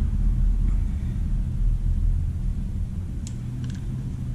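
Steady low rumble with a faint hum, and a couple of light metallic clicks about three seconds in from a brake caliper piston compressor tool being worked against the caliper.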